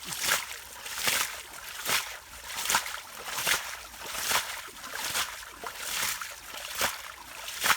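Muddy water splashing and sloshing in a steady rhythm, about ten strokes a little more than once a second, as hands scoop and push through the mud and water.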